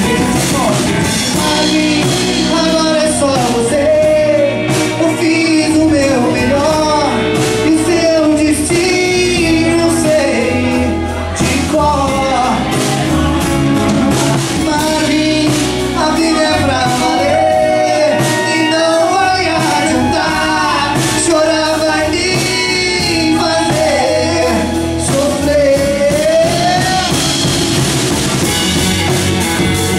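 Live folk band playing: a violin carrying a wavering melody over strummed acoustic guitar, electric bass and drums.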